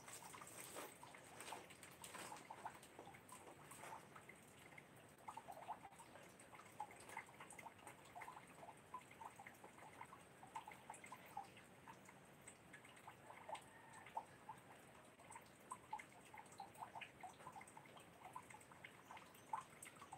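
Faint, irregular dripping and small splashes of water, several light drops a second.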